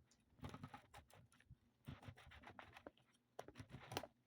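Faint, irregular clicks, taps and scrapes as a container of spaghetti sauce is opened and handled.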